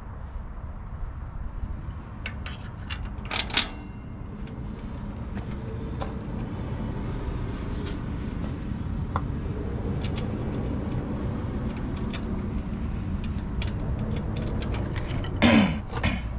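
Scattered small metal clicks and clinks of bolts and washers being fitted while a train horn is mounted on a truck, over a steady low rumble. A louder clatter comes about three and a half seconds in, and a louder, falling-pitched sound near the end.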